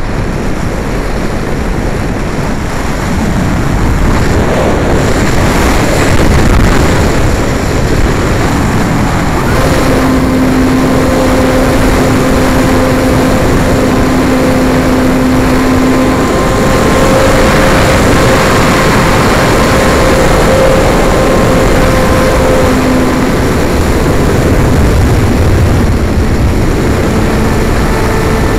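Air rushing over the RC model airplane's onboard microphone while it glides with the propeller stopped, then the motor restarts and the propeller runs with a steady whine that shifts in pitch a few times. The stop was a failsafe cutting the motor after a radio-control glitch.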